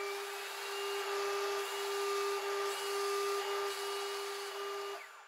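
Lombarte BDX 48 belt and disc sander running, its sanding belt rasping against a block of wood pressed flat on it, with a steady machine hum and a wavering high whine, and a shop vacuum hooked to the dust port running along. The sound dies away about five seconds in.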